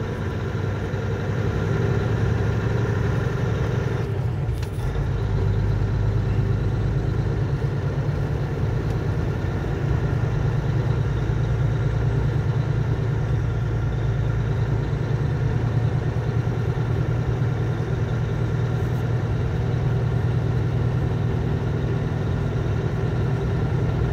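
Semi truck's diesel engine running steadily while driving, heard from inside the cab along with road noise. About four seconds in the sound briefly dips, then the low engine hum comes back stronger.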